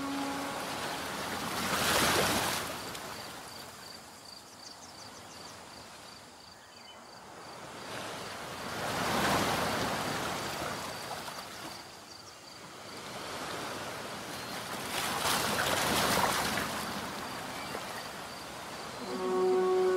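Surf washing in, in three slow swells about seven seconds apart. Music comes back in near the end.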